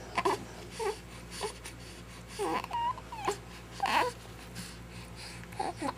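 Baby making short, soft squeaks and whimpery coos: about eight small separate sounds, each sliding up or down in pitch, spread through the few seconds.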